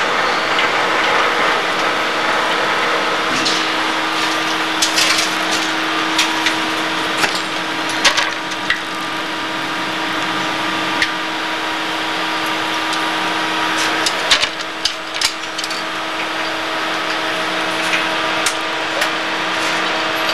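Hegenscheid 105 underfloor wheelset lathe turning a railway wheel, its tool cutting steel and throwing off long curling chips: a steady machine hum with a hiss of cutting. Scattered sharp clicks come through, with several close together about three-quarters of the way through.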